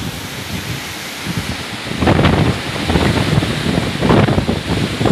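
Strong dust-storm wind buffeting the microphone, with louder gusts about two seconds in and again about four seconds in.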